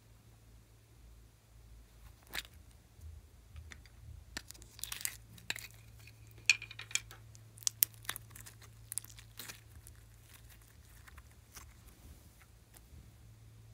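Hands handling a plastic mould and breaking up clear jelly-like chunks: scattered crackles, crinkles and sharp clicks, busiest in the middle, with one loud snap about halfway through.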